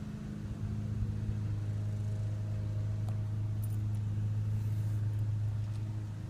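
A steady low mechanical hum holding one pitch, like a motor running, with a faint click about three seconds in.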